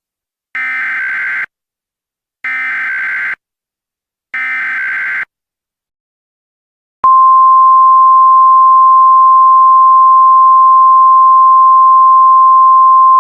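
Emergency Alert System SAME header: three short bursts of warbling digital data tones, about two seconds apart. After a pause comes the loud, single steady tone of the NOAA Weather Radio warning alarm, which signals that an emergency message follows.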